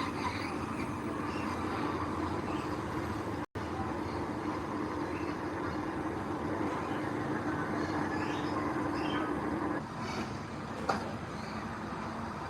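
Heavy diesel earth-moving machinery running steadily with a continuous engine drone, cut by a brief dropout about three and a half seconds in.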